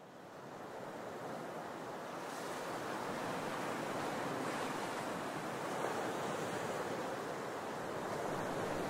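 Steady wash of ocean surf, fading in over the first couple of seconds and then holding even.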